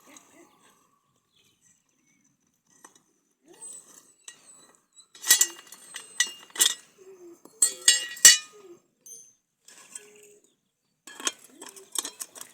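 Metal clinking and rattling in three short clusters, about five, eight and eleven seconds in, each with a ringing tone.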